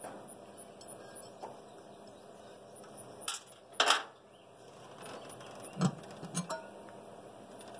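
Metal clinks and clatters from air-cleaner and intake-tube parts being handled and taken off a carbureted big-block engine. There are a few separate knocks, the loudest a short clatter about four seconds in.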